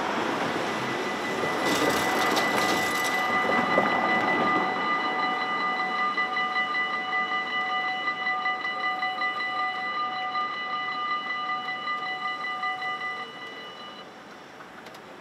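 Electronic warning bells of a Dutch level crossing ringing rapidly, several tones at once, while the half-barriers come down; a car drives past in the first few seconds. The bells stop one after another about a second before the end, as the barriers reach the down position.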